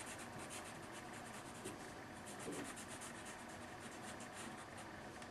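Pencil scratching on paper in short, quick repeated strokes while sketching construction lines, faint.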